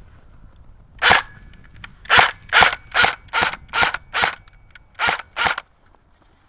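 Airsoft gun firing nine sharp shots: a single shot, then a steady string of six about 0.4 s apart, then two more.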